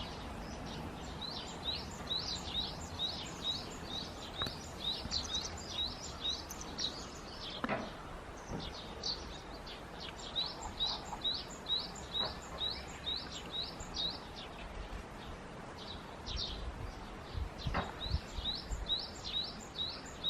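A small bird singing: runs of short, high chirps repeated about three times a second, with brief pauses between the runs.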